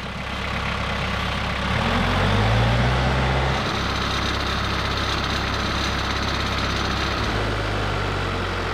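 Tractor engine running, rising in pitch and loudness for a second or so about two seconds in, then settling back to a steady run.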